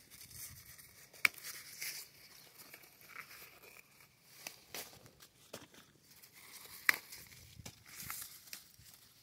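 Tomatillo leaves and papery husks rustling and crinkling as the fruit is picked by hand, with sharp snaps as tomatillos are pulled off their stems, the loudest about a second in and again about two-thirds of the way through.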